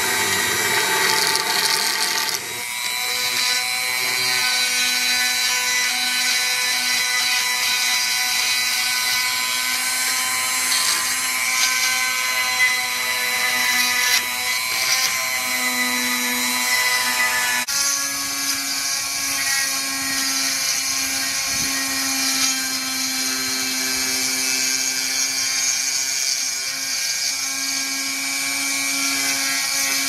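Handheld rotary tool running at high speed, a steady high whine, its small bit boring a hole into the centre of a figurine's sculpted flower. The tone shifts abruptly about 2.5 seconds and again about 18 seconds in.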